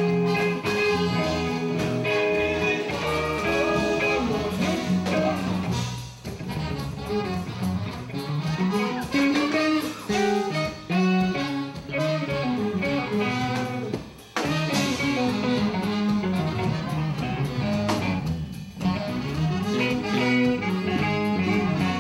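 Live band playing loudly: electric guitar, drum kit and an alto saxophone carrying a melody, with a few brief breaks in the music.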